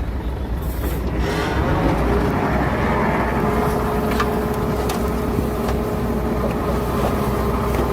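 Heavy diesel earthmoving machinery running under load, with a steady low engine rumble; a steady whine joins about three and a half seconds in.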